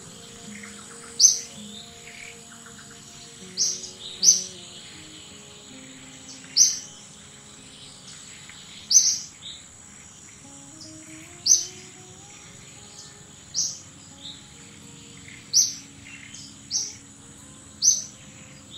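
A bird repeating a short, sharp, high call about every two seconds, around ten times, over a steady high-pitched insect drone.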